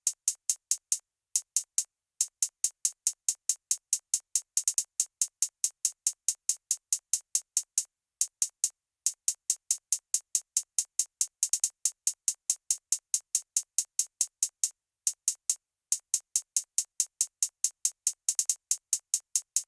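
Drum-machine hi-hats from an electronic beat made in Soundtrap, ticking rapidly at about six a second with no bass or kick under them. The pattern stops for short breaks and thickens into quicker rolls three times.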